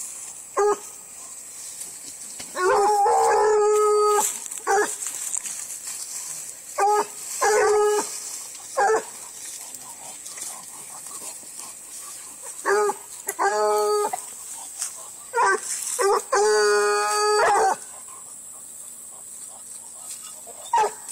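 Bluetick coonhound baying: a dozen or so short barks and long, drawn-out bawls in bunches, with pauses of a few seconds between them. The two longest bawls come about three seconds in and about sixteen seconds in.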